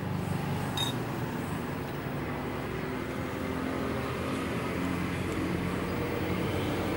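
A motor vehicle engine running nearby, a steady low drone, with a brief click about a second in.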